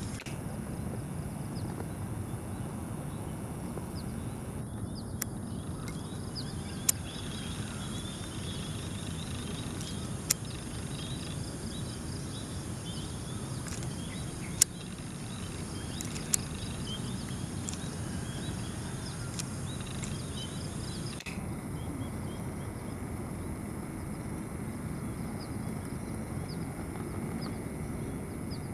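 Outdoor ambience: a steady low rumble with faint, high bird chirps, broken by four sharp clicks spread through the middle.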